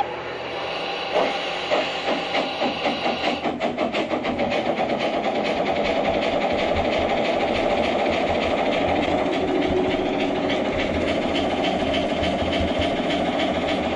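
Electronic steam sound effects from a G-scale model steam locomotive's onboard speaker as it starts away. A steam hiss stops a few seconds in, while chuffs begin just after a second and quicken until they run together into a steady chugging as the train gets up speed.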